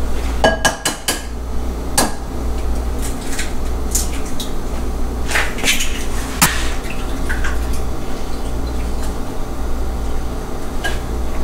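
An egg tapped and cracked on the rim of a glass bowl: a quick run of sharp taps about half a second in, then scattered clinks of glass bowls and shell. A steady low hum runs underneath.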